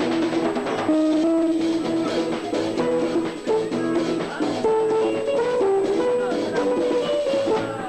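Live Indian chutney band playing an instrumental passage: a stepping lead melody of held notes over a drum kit and guitar.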